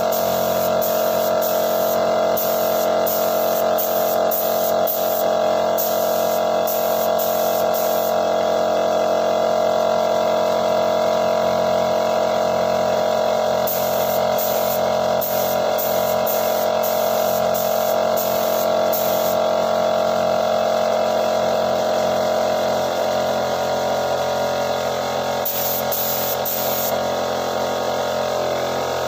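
Air compressor running steadily with an even, unchanging drone, together with the hiss of a gravity-feed spray gun spraying duco lacquer.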